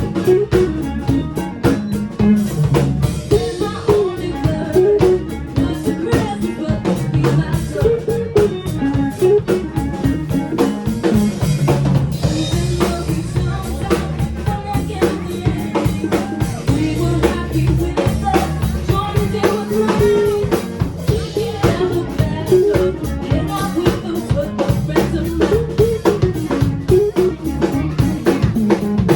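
Band music: a rock song with a drum kit keeping a steady beat under bass and melodic lines, with some singing.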